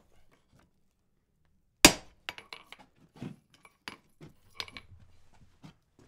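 A single hard sledgehammer blow on iron at the anvil, a sharp ringing metal strike about two seconds in. A string of lighter metal clinks and knocks follows.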